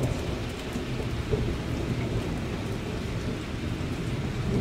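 Heavy rain falling steadily, with a low continuous rumble of thunder underneath.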